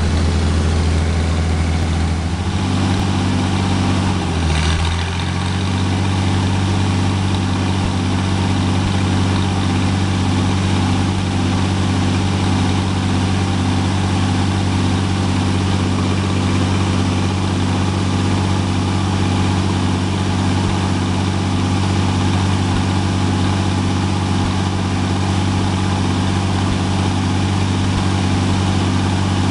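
Freshly rebuilt Continental Red Seal F227 six-cylinder flathead engine running steadily during its start-up and tune-up. The engine note dips briefly about four seconds in, then recovers and holds even.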